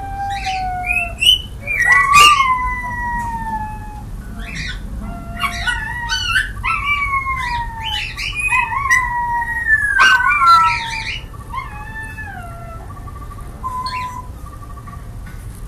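A pet crying: a run of high, drawn-out whining cries, most sliding down in pitch, with short sharp chirps between them. The cries grow fainter and shorter after about eleven seconds.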